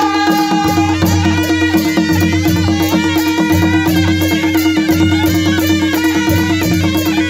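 Nepali panche baja band playing a dance tune: a shehnai-type reed melody over drums and cymbals keeping a quick steady beat, with a held low note underneath.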